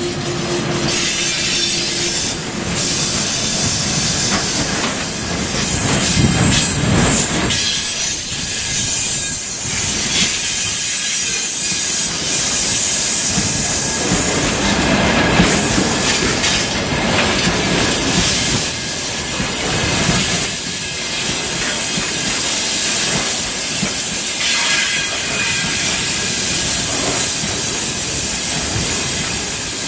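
Loaded freight train of dump cars rolling past close by: steel wheels clattering over the rails with a hissing rush and a thin, high wheel squeal that comes and goes.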